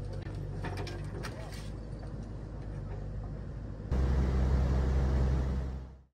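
Compact excavator's engine running, with sharp metallic clanks and knocks of rubble being worked in the first two seconds. About four seconds in it gives way to a louder, deeper engine rumble, which fades out abruptly just before the end.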